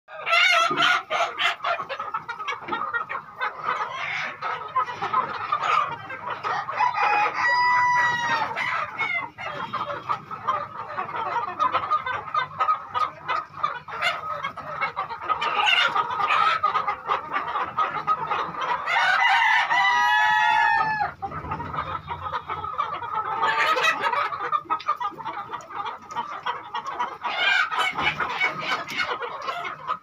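A large flock of Sonali chickens clucking and chattering continuously, with roosters crowing clearly about eight seconds in and again around twenty seconds.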